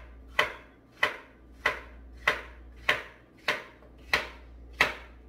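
Kitchen knife chopping peeled cucumber into chunks on a cutting board: eight even, sharp chops, a little under two a second.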